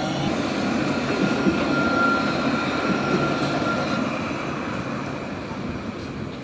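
Alstom Citadis tram passing close by on street track: a rolling rumble with a steady high whine over it, loudest about two seconds in, then fading as the tram moves away.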